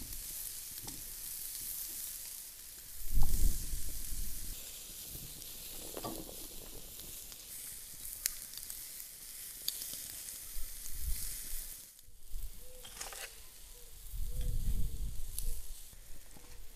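Beef ribs sizzling over a charcoal grill, with scattered crackles of spitting fat and a loud thump about three seconds in. About two-thirds of the way through the sizzle drops away and low thuds follow.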